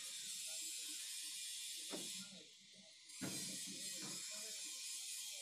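Faint background music over a steady hiss. About two and three seconds in come two sharp clicks of metal tools on the diesel engine's exposed rocker arms and tappets.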